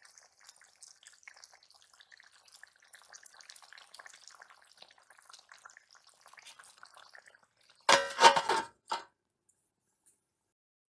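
Curry simmering faintly in an aluminium karahi, then about eight seconds in a loud metallic clatter as the aluminium lid is set down on the pan.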